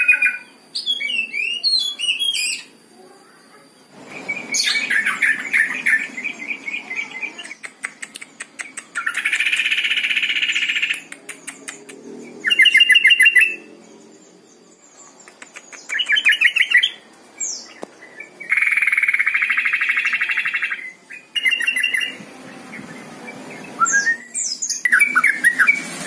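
Caged yellow-vented bulbul (trucukan) singing in repeated bursts of fast, chattering trills and warbled phrases, each a second or two long, with short pauses between them.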